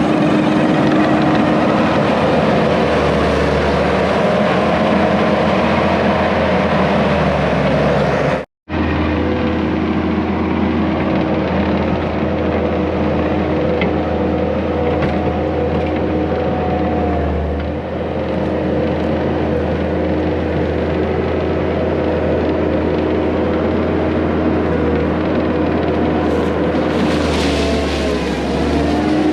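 Skid steer engine running steadily at working throttle, its pitch shifting slightly as it works. The sound drops out completely for a split second about eight seconds in.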